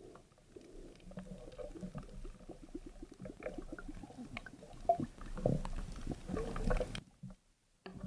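Underwater clicking, crackling and muffled knocks as the spear shaft, line and struck fish jostle underwater, heard through a submerged camera. The knocks grow louder in the second half, then the sound drops away abruptly about seven seconds in.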